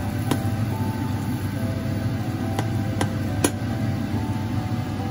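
Sugar syrup boiling in a stainless steel saucepan as it turns to caramel: a steady bubbling noise, broken by four sharp clicks.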